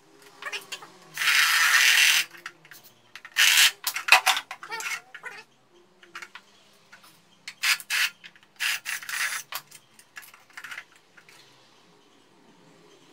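A small wooden box being handled and fitted together by hand: a series of short scraping and rubbing noises of wood with light clicks and knocks, the longest scrape lasting about a second.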